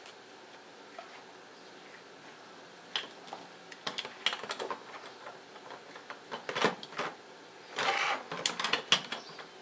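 Hard plastic Beyblade parts clicking and rattling as they are picked out of a plastic packaging tray and set down in the plastic stadium. Silent at first, the clicks start about three seconds in and get busier near the end.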